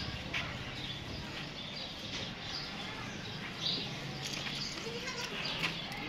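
Faint scattered bird chirps over a low steady hum, with a brief faint call near the end.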